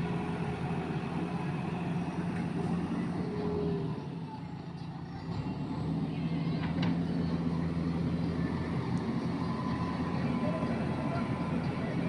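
JCB backhoe loader's diesel engine running steadily, easing off about four seconds in and picking back up a second or so later.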